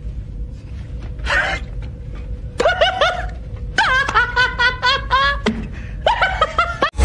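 A man laughing in bursts of quick, rising "ha" syllables, starting about two and a half seconds in and running in rapid strings until near the end.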